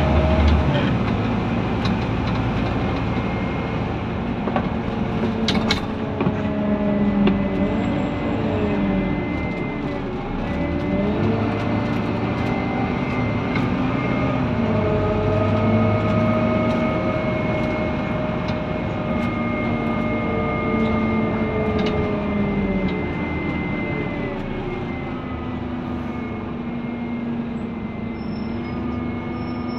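Scania N230UD Omnidekka double-decker bus heard from inside while it drives: its five-cylinder diesel engine and automatic gearbox rise and fall in pitch again and again as the bus pulls away, changes gear and slows. A steady high whine sits over the engine and road noise.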